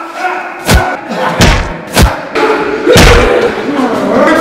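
Punches and kicks landing in a hand-to-hand fight: sharp thudding hits, about four in quick succession, a half second to a second apart.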